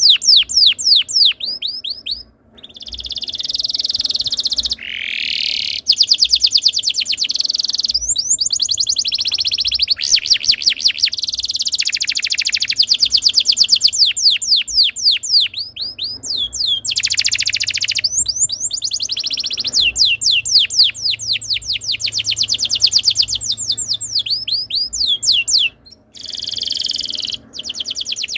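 Canary singing a long, loud song: rapid rolling trills of quick sliding notes, switching between faster and slower rolls and buzzy held phrases, with brief breaks about two seconds in and near the end.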